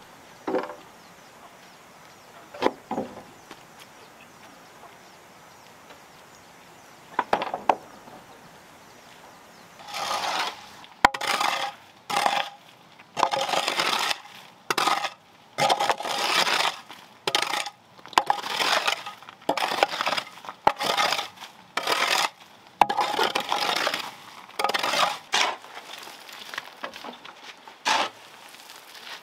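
A few scattered knocks of wood being handled. Then, from about ten seconds in, a run of scratchy strokes, roughly one a second, from a stick broom sweeping a gritty dirt floor and a hoe scraping loose gravel.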